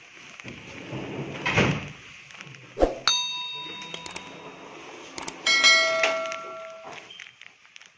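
A sharp click, then a ringing electronic chime, and a few seconds later a second, louder and longer chime: a hotel door-exit button being pressed and the electronic door being released.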